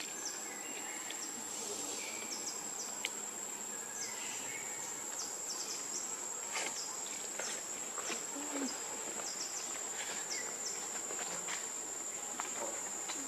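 Steady high-pitched drone of insects calling in forest, with many short chirps and a few faint clicks scattered through it.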